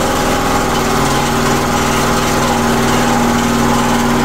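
Portable open-frame generator's engine running steadily just after it has started, a constant engine hum.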